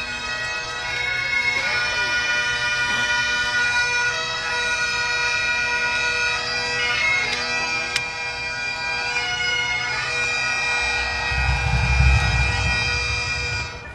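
Bagpipes playing a tune over a steady drone, with a low rumble near the end. The piping cuts off suddenly just before the end.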